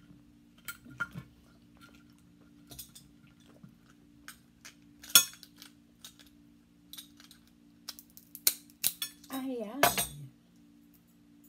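Cooked crab shell being picked apart by hand: scattered sharp clicks and clacks of shell cracking and knocking against a plate, the loudest crack about five seconds in. A short mouth sound that falls in pitch comes a little after nine seconds.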